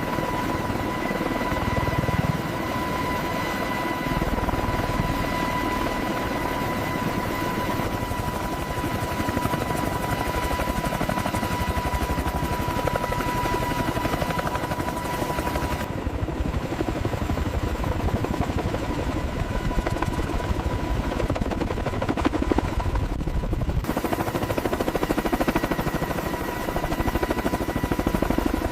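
Helicopter running steadily, its rotor chop and engine noise continuous, with a thin high whine through the first half.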